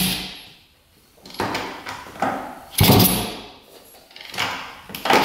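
A 1967 Yamaha YL1 two-stroke twin being kicked over repeatedly by its kick-starter, about five kicks at uneven intervals. Each kick is a sudden clunk followed by a short spin of the engine that dies away without the engine catching. It is a first start attempt with the choke stuck and fuel fed straight into the carburettor.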